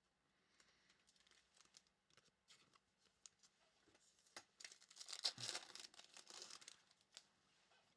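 Faint crinkling and tearing of a foil trading-card pack wrapper being ripped open, with soft card-handling ticks before it; the rustling runs from about four and a half to seven seconds in.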